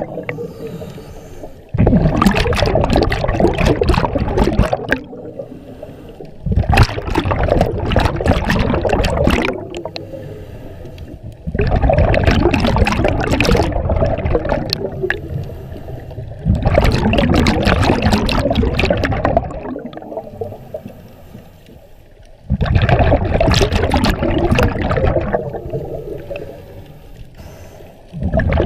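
Scuba regulator exhaust heard underwater: a diver's exhaled bubbles gurgle out in bursts of about three seconds, each starting suddenly and fading, about every five seconds, with quieter breathing between.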